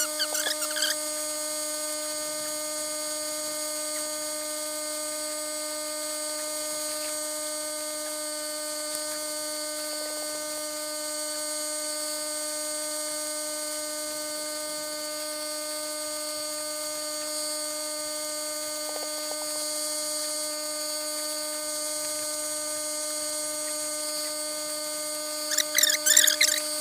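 A generator's steady hum, sped up into a high-pitched whine made of several steady tones. Brief fluttering chirps high up about a second before the end.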